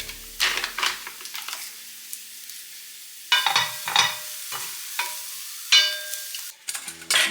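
Stir-fried dried anchovies being stirred in a frying pan with a spatula: a few separate scrapes and clinks, with the pan ringing lightly after some of them.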